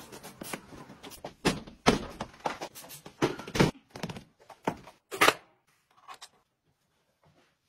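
An irregular run of sharp clicks and knocks, five of them loud, that stops about five seconds in.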